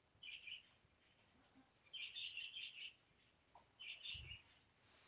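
Near-silent room tone with a small bird chirping faintly in the background in short bursts, three or four times, the longest run a little after two seconds in. A soft low thump comes about four seconds in.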